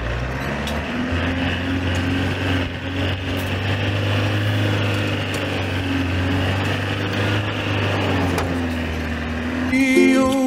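Iveco Daily 4x4 camper's turbodiesel engine running under load at steady revs while driving. Music comes in just before the end.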